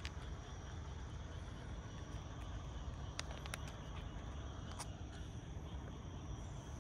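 Night-time outdoor ambience: a steady high insect trill over a low, even rumble, with a few brief clicks a little past the middle.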